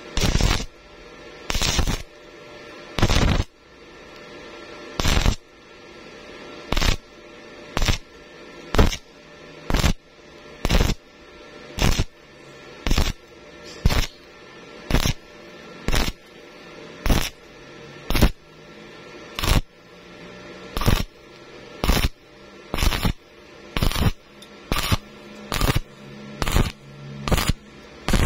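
Stick welding arc on thin galvanized steel tube, struck and broken again and again: about 28 short bursts of arc noise roughly once a second, with a quieter hiss between them. This is an intermittent stitch technique for 0.9 mm galvanized metal.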